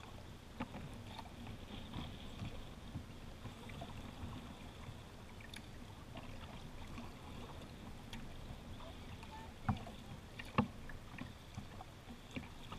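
Water lapping and splashing along a kayak's hull as it is paddled, with a scatter of small clicks and knocks, two sharper knocks close together about ten seconds in.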